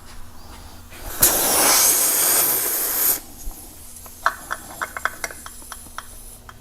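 Air hissing hard for about two seconds out of a UTV tire's open valve stem, its valve core removed. A quick run of small clicks follows about a second later, typical of a valve core tool threading the core back in.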